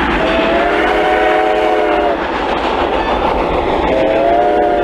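Locomotive air horn sounding two long blasts, the second starting about four seconds in, over the steady low rumble of a passing train.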